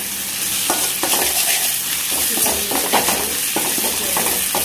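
Sliced onions, curry leaves and crushed ginger-garlic sizzling in coconut oil in an aluminium kadai, stirred with a steel ladle that scrapes across the pan in repeated strokes, sautéing the ginger-garlic.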